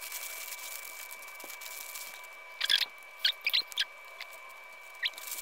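Thin plastic packaging bag rustling as it is cut with scissors and handled, with a quick run of short squeaky crinkles about halfway through and one more near the end, over a faint steady high whine.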